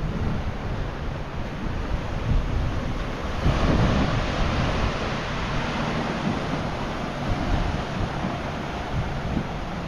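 Sea waves washing in, with wind buffeting the microphone; the noise swells louder about three and a half seconds in.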